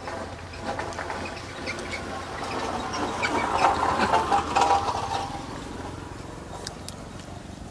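A person chewing a mouthful of boiled chicken and raw vegetables close to the microphone, with small wet mouth clicks, loudest around the middle.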